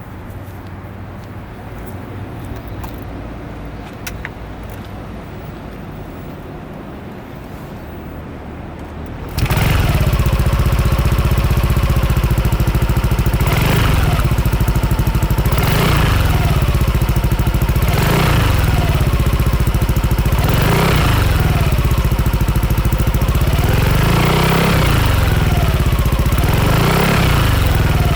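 Yamaha N-MAX 155 scooter's single-cylinder four-stroke engine through a BEAMS CORSA-EVO II full exhaust with a matt black silencer. For the first nine seconds there is only a quieter low rumble; then the exhaust note comes in abruptly and loud, idles for a few seconds, and is blipped over and over, the pitch rising and falling about every two seconds.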